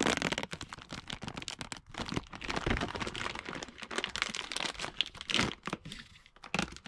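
Crinkling and rustling of a plastic bag and corrugated plastic wire loom being pulled out and handled, an irregular run of crackles that thins out near the end.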